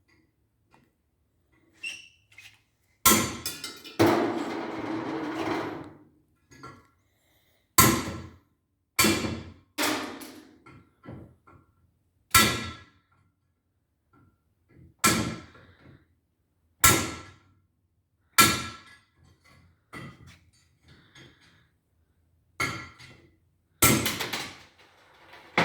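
Hammer blows on a steel driver tool set against weld blobs, knocking valve seat inserts out of a cylinder head: about a dozen sharp metallic strikes one to three seconds apart, each ringing briefly, with lighter clinks between them. One strike about four seconds in is followed by a rattle of about two seconds.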